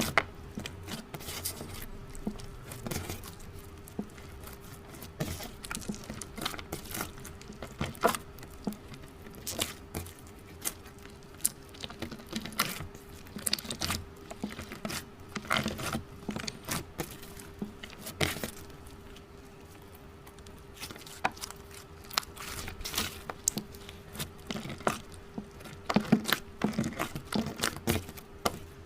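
Slime being squished and kneaded by hand, giving frequent irregular sticky clicks and pops, over a faint steady hum.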